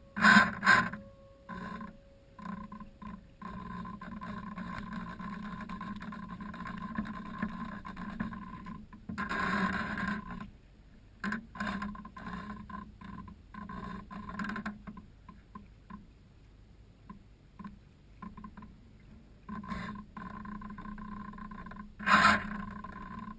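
Motor of a radio-controlled Seawind model seaplane running at a steady pitch, cutting in and out repeatedly, with louder surges just after the start, midway and near the end.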